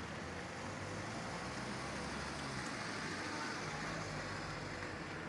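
Steady outdoor street noise with a faint low engine hum.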